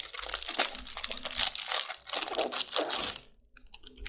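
Packaging crinkling and rustling as it is handled and pulled off the power bank, stopping about three seconds in.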